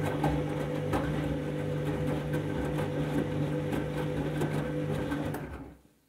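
Candy front-loading washing machine running in its rinse cycle: a steady motor hum with water sloshing and splashing in the drum. The sound stops abruptly near the end.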